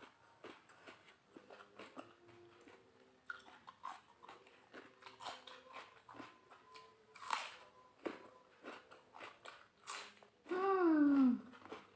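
Close-miked chewing and biting of food, with crunches and wet mouth clicks. About ten and a half seconds in comes a short hummed "mmm" that falls in pitch.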